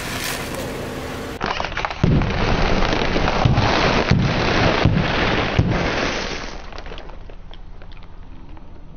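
Car tyre rolling over a row of sealed crisp packets. The packets crackle and the crunchy snacks inside crush, with several sharp pops as the bags burst. The crackling dies down after about six seconds.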